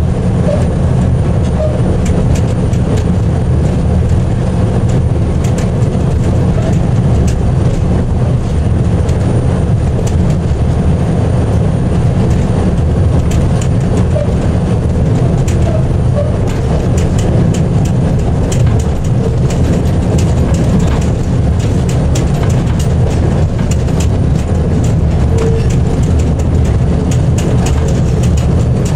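Diesel locomotive DSA 273 running steadily, heard from inside its cab: a loud low engine rumble with frequent clicks and rattles of the wheels on the track.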